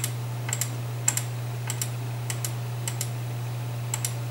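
Computer mouse button clicking over and over, each click a quick double tick of press and release, about one every half second, over a steady low hum.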